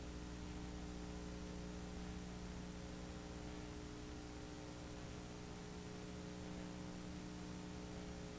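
Faint, steady electrical hum with an even hiss over it, no other sound: the noise floor of an analog tape transfer.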